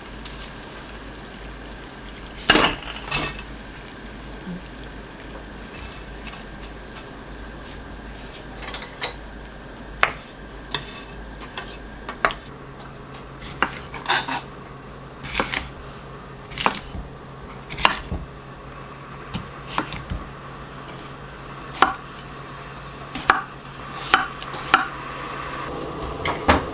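Kitchen utensils clinking and knocking against dishes and pans in irregular strikes, as in cooking and plating food. A low steady hum joins about halfway through.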